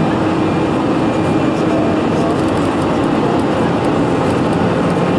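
Steady engine and airflow noise heard inside the cabin of a jet airliner in flight, with a faint low hum that fades about halfway through.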